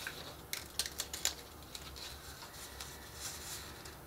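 Faint handling of paper and chipboard: a paper strip being bent and pressed around a small chipboard cone. A cluster of light clicks and crinkles comes about half a second to a second and a half in, then softer rustling.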